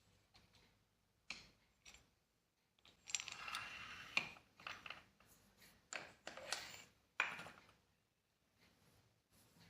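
Handling noises from a metal part: a few sharp metallic clicks and clinks mixed with stretches of scraping and rubbing. The loudest stretch comes about three seconds in.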